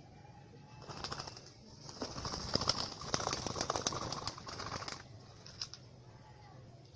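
Spotted dove caught in a rope trap, beating its wings in a rapid flurry. There is a short flurry about a second in, then a longer one lasting about three seconds, and a last single flap near the end.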